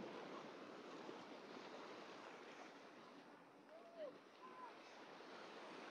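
Faint wash of small waves breaking on the shore. A couple of short, far-off voice sounds come about four seconds in.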